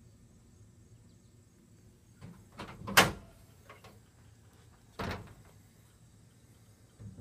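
A few short knocks and bumps against a quiet background: a small cluster building to one sharp loud knock about three seconds in, another knock about five seconds in, and a faint one near the end.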